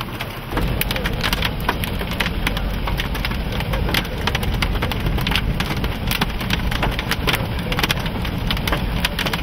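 Raindrops striking a hard surface as many sharp, irregular ticks, over a steady low rumble that comes up about half a second in.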